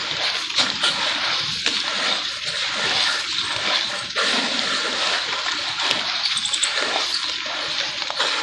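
Wet charcoal paste being worked in a bowl: a continuous wet squelching and sloshing, with small crackles throughout and a sudden change in texture about four seconds in.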